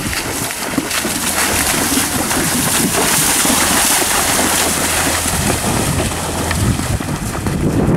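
A horse cantering through shallow water, its hooves splashing and churning the water without a break. Wind rumbles on the microphone underneath.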